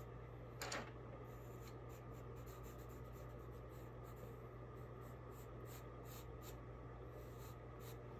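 Graphite pencil sketching on white copy paper: faint, scratchy strokes as curved outlines are drawn, with one louder stroke a little under a second in. A steady low hum runs underneath.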